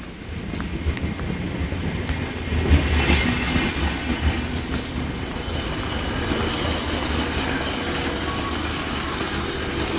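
Renfe Class 470 electric multiple unit pulling into the station past the platform edge: the rumble of wheels and running gear builds about half a second in, and a high squeal sets in about six and a half seconds in as the train slows.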